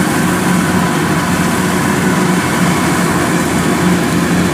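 Kubota DC-108X combine harvester's diesel engine running steadily under load while it cuts and threshes rice: an even drone with the thresher's rattle over it. It sounds smooth, with no rough or labouring note.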